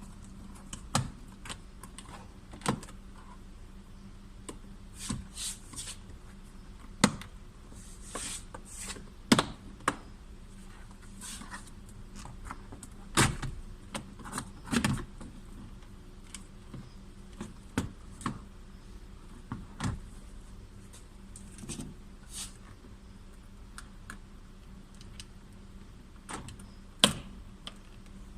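Irregular clicks and knocks of hands and tools working a car door's interior trim panel, plastic parts clicking and tapping, with a few sharper knocks along the way.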